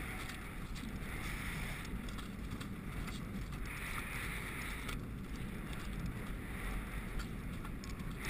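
Wind rushing over the microphone of a rider's head-mounted camera while a horse gallops across grass, with the dull rumble of its hooves on the turf underneath.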